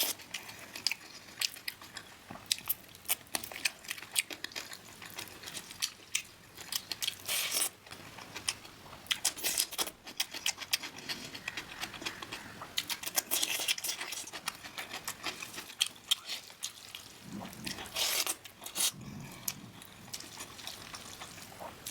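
Close-miked eating sounds: chewing and biting, with many sharp clicks and crackles coming irregularly and a few longer crunches.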